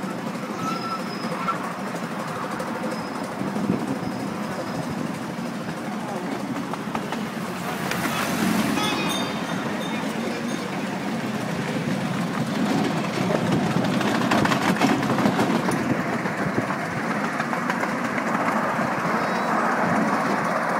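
A 7¼-inch gauge miniature steam train heard from its front seat, running steadily along the track with a continuous rattle of wheels on rail. Another passenger train passes close alongside about ten seconds in, and the clatter grows louder and busier in the second half.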